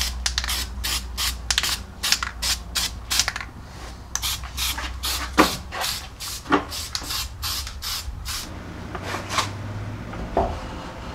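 Aerosol can of weld-through primer sprayed in many short hissing bursts, about three a second, stopping about eight seconds in. A few light knocks sound between and after the bursts.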